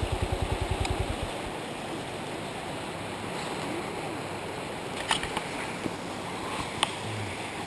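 A motorcycle engine idling with a regular low throb cuts off about a second in, leaving the steady rush of river water. A few light clicks come near the middle and near the end.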